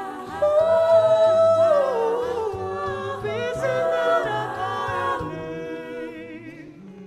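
An a cappella group singing live: a male lead voice holds a high note over sustained backing harmonies and a low bass line, then glides down. The chord fades out about five to six seconds in.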